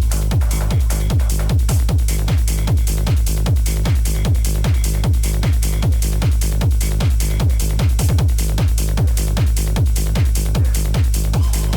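Hard techno DJ mix with a deep, heavy kick drum pounding on every beat, with a quick drum roll about eight seconds in.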